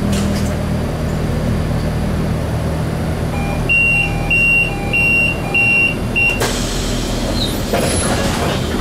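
Charleroi light metro car's door-closing warning: a two-tone beep alternating high and low, about five rounds over the steady hum of the stopped car. About six and a half seconds in the doors shut with a thud, followed by a short rush of noise.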